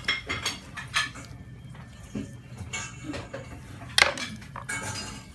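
A boning knife clicking and knocking against a plastic cutting board while a whole chicken is cut off the bone by hand: a handful of separate sharp clicks, the loudest about four seconds in.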